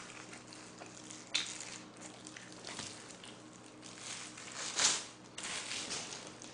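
Disposable plastic gloves rustling as gloved hands handle food and rub together, in a few short bursts, the loudest about five seconds in, over a faint steady room hum.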